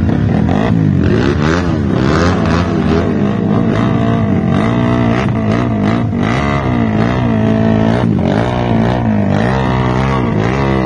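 Small single-cylinder underbone motorcycle with an aftermarket exhaust being revved hard over and over, its pitch rising and falling about once a second, while the rear tyre spins in a burnout to heat it before a drag run.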